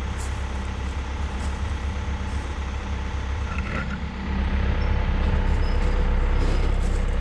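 John Deere 190 excavator's diesel engine running with a steady low drone, getting louder about four seconds in; faint clicks over it.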